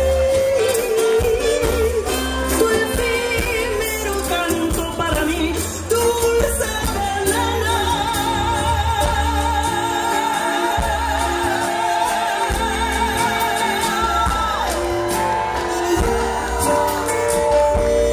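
A woman singing live with a band, amplified through a PA. Over a steady bass, the first few seconds are a moving vocal line, and from about seven seconds in the music settles into long held notes with vibrato.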